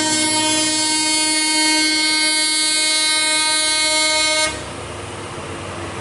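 A truck's horn held in one long, steady blast on a single pitch, cutting off suddenly about four and a half seconds in; a truck engine's low rumble carries on after it.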